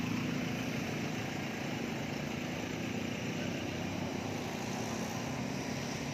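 Steady road traffic noise from cars and motorcycles driving slowly past close by, with engines running. No single event stands out.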